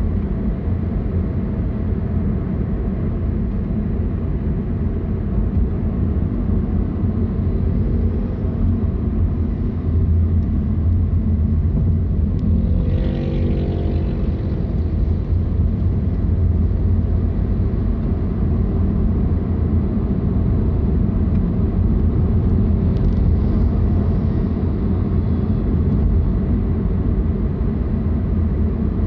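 Car being driven on a road: a steady low rumble of engine and tyres, with a brief pitched sound near the middle lasting about a second and a half.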